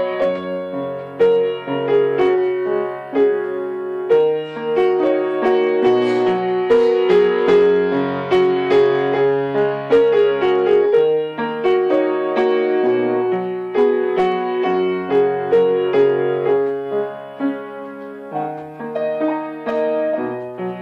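Background piano music: a melody of many notes over lower held notes.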